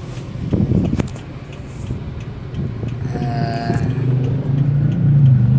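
Vehicle engine running with a low steady hum, a sharp click about a second in, and a short steady-pitched horn toot a little past the middle; the engine rumble grows louder near the end.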